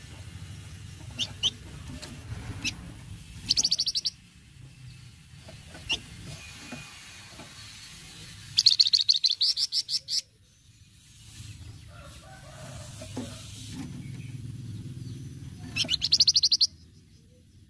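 Flamboyan songbird giving its rapid rattling 'cretet' call: three short bursts of quickly repeated high notes, with a few single chirps between them, over a steady low hum.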